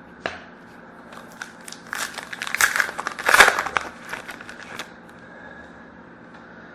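Trading cards and their plastic packaging being handled: crinkling and rustling with sharp clicks, busiest between about two and five seconds in.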